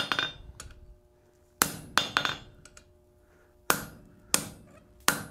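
Hammer blows on a round top tool (veining butcher tool) held in tongs against hot steel on the anvil: about seven uneven strikes, some in quick pairs, each followed by a fading metallic ring from the anvil and tool.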